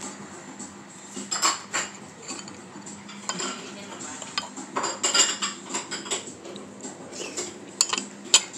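Metal fork clinking and scraping against an oyster shell and a ceramic plate while prying out an oyster: a run of irregular sharp clinks and scrapes.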